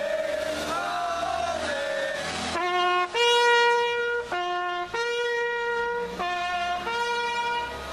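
A brass horn playing. First comes a wavering, unsteady tune; then, from about two and a half seconds in, it alternates between two notes a fourth apart, a short low note and a longer high note, in the pattern of a fire engine's two-tone siren.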